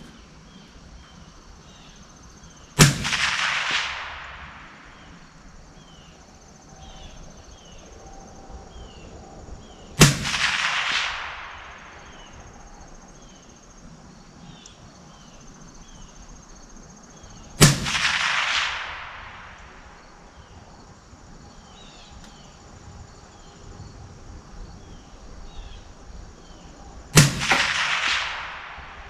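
Four shots from a Ruger SFAR .308 semi-automatic rifle, spaced seven to ten seconds apart, each followed by a rolling echo that dies away over a second or so.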